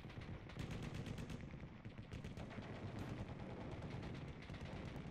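Rapid machine-gun fire in quick runs of shots over a steady low rumble.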